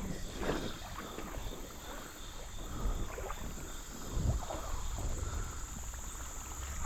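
Wading steps sloshing through shallow creek water, with a few soft splashy thumps, over a steady high insect buzz.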